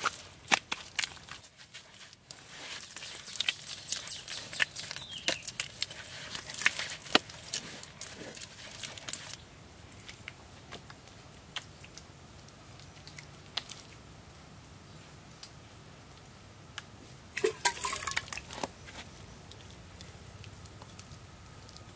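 Wet cement mortar being pressed and smoothed on by gloved hands: irregular small scrapes, slaps and clicks. They are busiest in the first half, thin out in the middle, and come back in a short flurry near the end.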